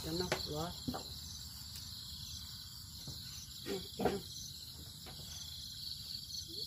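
Insects chirring steadily in the background, with a couple of brief soft sounds about four seconds in.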